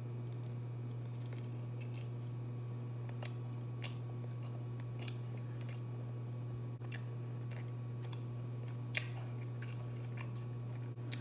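A person biting and chewing fried chicken wings close to the microphone, with scattered crunches and wet mouth clicks. A steady low hum runs underneath.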